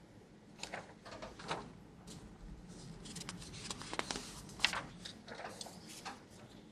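Faint handling of paper: a sheet rustles and slides, with a scatter of brief soft scrapes and taps, the loudest a little past halfway.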